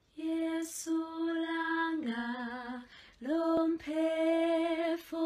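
A woman's singing voice holding long, sustained notes, dipping to a lower wavering note about two seconds in before returning to the higher pitch.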